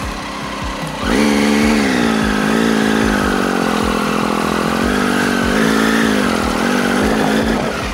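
A motorcycle engine revving hard. It comes in sharply about a second in and is held at high revs for about six seconds, its pitch wavering up and down with the throttle, then drops away near the end.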